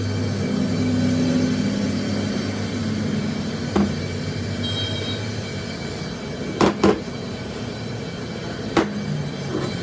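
Steady low machine hum from metalworking, broken by four sharp metal knocks, two of them close together.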